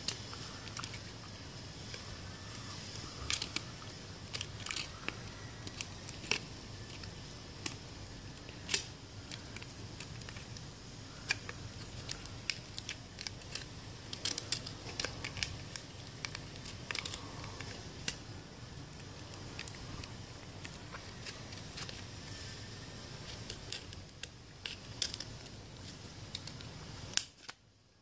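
A utility knife cutting thin plastic bottle and the plastic being handled: irregular small clicks and crinkles over a low steady hum.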